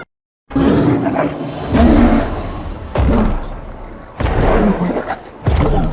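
Designed film sound effects of giant apes roaring: after about half a second of silence, a run of about five loud, rough roars in quick succession.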